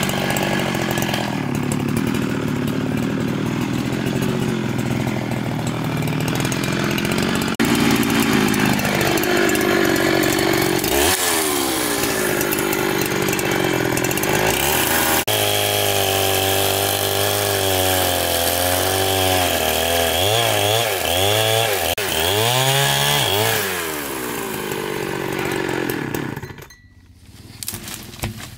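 Chainsaw running and cutting wood, its engine pitch wavering up and down under load; it stops shortly before the end.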